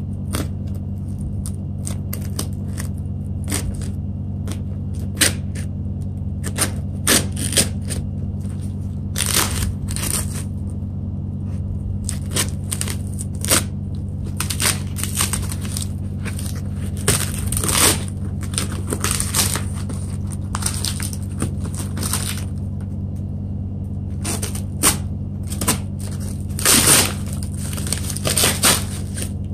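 Plastic shrink-wrap and a cardboard parcel being slit with a knife and torn open by hand: irregular crackling, tearing and rustling of plastic film and cardboard, loudest in several flurries, over a steady low hum.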